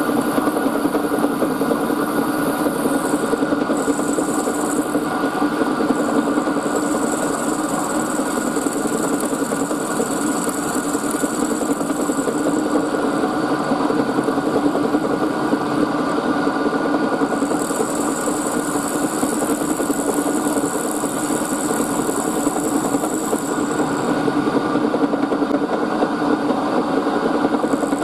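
Milling machine running with an end mill cutting a brass block in a vise: a steady machine hum with a high hiss that comes and goes.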